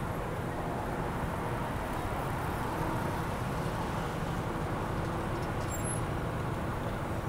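Steady city street traffic: a continuous hum of motor vehicles with no single event standing out.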